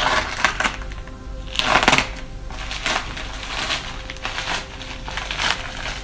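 Plastic courier mailer bag being torn open and handled: a series of short crinkling rustles, the loudest about two seconds in.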